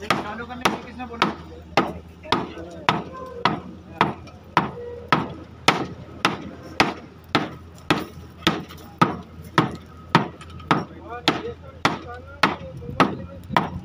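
Wooden mallet beating on a rubber conveyor belt, a steady run of dull blows a little under two a second, hammering down the belt's newly made joint.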